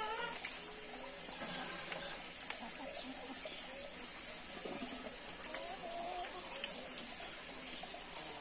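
Water running and trickling in a backyard aquaponics system, with a few sharp clicks and knocks scattered through and birds calling in the background.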